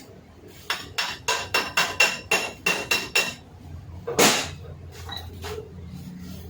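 A hammer tapping on metal while a Mitsubishi 4D32 diesel injection pump is being dismantled: about ten quick ringing taps at roughly three a second, then one louder knock a second later.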